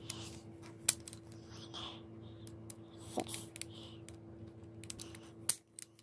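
Pak-A-Punch hand-operated key code cutter clicking and snapping as cuts are punched into a key blank: several sharp clicks spaced irregularly over a steady low hum.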